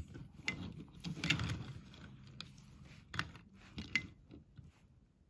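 Small die-cast and plastic Matchbox toy vehicles being slid and set down on a tabletop by hand. There are light scrapes and about five sharp little clicks as the cars touch the table and knock against each other.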